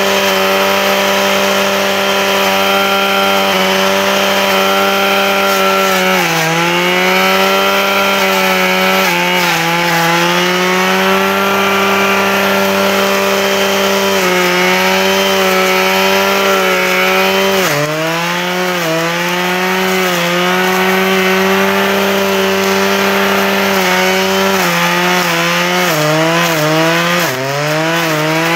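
Husqvarna 535 RJ two-stroke brushcutter running at high revs with a Brushdestructor blade. The engine pitch dips and recovers several times as the blade bogs into brush, hardest about six and eighteen seconds in and in a quick run of dips near the end.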